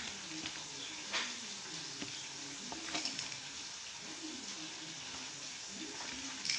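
Faint, steady sizzle of sausages frying in a pan, with a few soft clicks and taps as cheese is broken up by hand.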